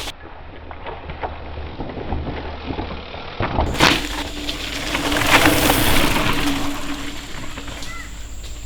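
Cross-country mountain bike ridden hard on a dirt trail: tyres crunching and crackling over dirt, twigs and loose stones, with sharp clicks and rattles from the bike. About three and a half seconds in, the sound jumps from muffled to bright and full.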